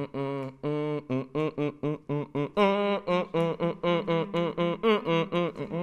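A man humming a song's melody in quick, evenly spaced syllables for others to guess. The tune steps up in pitch about two and a half seconds in.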